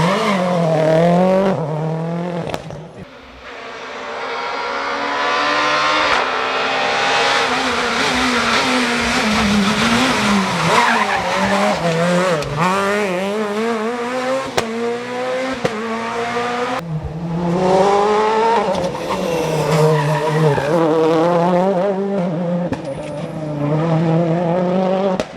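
Rally car engines revving hard through the gears, their pitch climbing and dropping again and again, with tyre squeal on the corners; the sound cuts abruptly between cars a few times.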